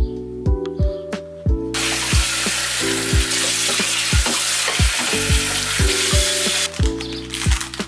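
Kitchen tap running into a stainless-steel sink, a steady hiss that starts about two seconds in and stops about five seconds later, followed by a brief clatter of dishes. Background music with a steady beat plays underneath.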